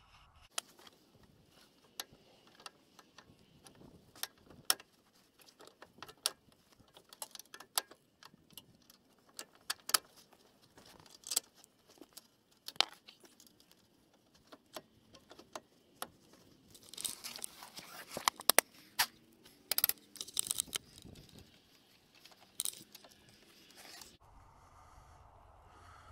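Hand tools clinking, knocking and scraping against steel front-suspension parts as a wrench is worked on the knuckle and ball joint, with scattered sharp clinks and a denser run of rapid clicking and rustling about two-thirds of the way through.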